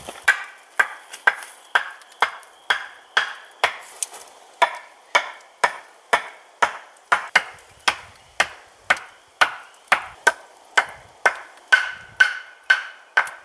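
A steady run of sharp knocks, about two a second and evenly spaced, each with a short ringing tail.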